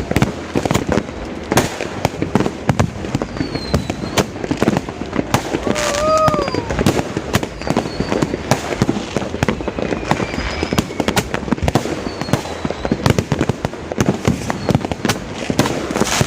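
Fireworks and firecrackers going off in a dense, continuous string of pops and cracks.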